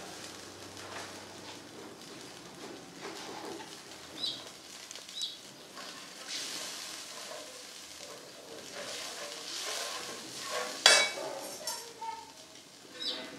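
Cumin seeds and chillies frying in a tadka in a steel kadai, a steady sizzle, with a steel ladle stirring and clinking against the pan; one sharp clink about eleven seconds in is the loudest.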